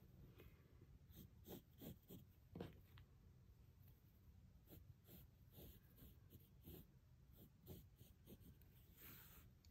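Near silence, broken by faint, scattered soft scratches of a pencil drawing on tracing paper.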